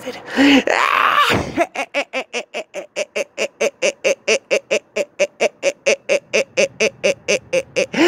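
A man's voice doing a witch's cackle: a loud high cry, then a rapid, even string of short 'ha' notes, about five a second, kept up for several seconds.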